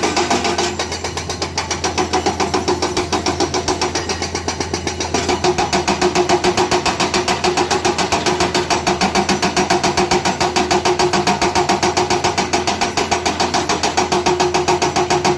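Heavy diesel construction machinery running, with a rapid, even pulsing of about eight beats a second.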